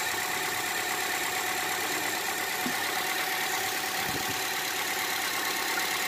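Hyundai i10's Kappa petrol engine idling steadily and quietly, without hunting, on a freshly replaced cylinder head: the misfire has been cured.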